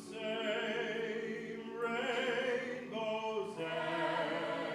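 A cappella vocal group singing in harmony, several voices holding sustained chords that change every second or two.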